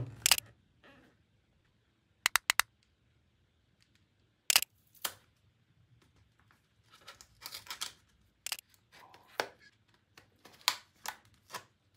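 Cardboard retail box of a small speaker being handled and opened: scattered sharp taps and clicks, among them three quick clicks a couple of seconds in, then scratchy scraping in the second half as the box's seal is slit with a tool.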